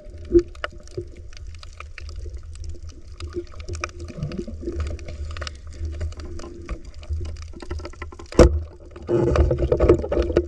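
Underwater ambience picked up by a submerged camera: a steady low water rumble with scattered crackling clicks. There is a single sharp knock about eight seconds in, and a louder rushing stretch near the end.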